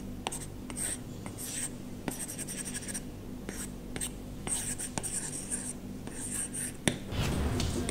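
Apple Pencil tip scratching across a matte PET paper-like screen protector in short separate strokes, a papery writing sound, with a few light taps of the tip. The sharpest tap comes near the end.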